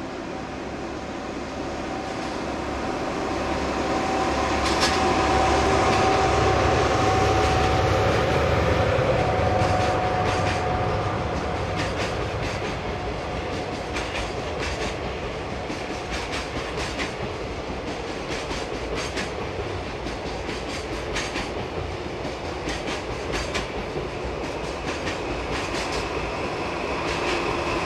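DD51 diesel-hydraulic locomotive running as it hauls a freight train past, loudest a few seconds in, followed by the long string of container wagons rolling by with their wheels clicking steadily over the rail joints.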